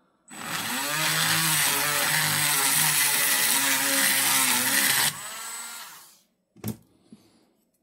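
Small handheld rotary tool with a diamond grinding bit running and grinding the roughened copper tip of a spot-welder electrode, dressing the tip's surface. It runs for about five seconds, is switched off and winds down, and a single click follows near the end.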